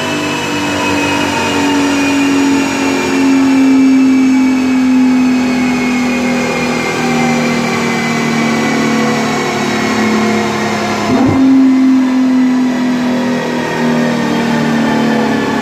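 Nissan R35 GT-R's twin-turbo 3.8-litre V6 on a chassis dyno, sounding through a full titanium HKS Superior Spec-R cat-back exhaust. Its pitch falls slowly and steadily as engine and rollers run down. About eleven seconds in the sound breaks briefly and the pitch jumps a little higher before falling again.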